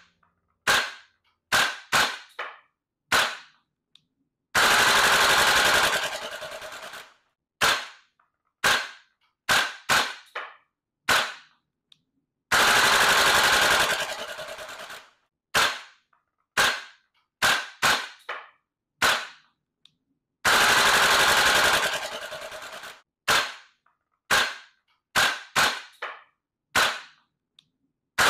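Gas blowback airsoft rifles, a VFC HK416A5 among them, firing loud sharp single shots and quick doubles. Each run of single shots is followed by a full-auto string of one and a half to two and a half seconds, and this happens three times, with a fourth string starting at the very end.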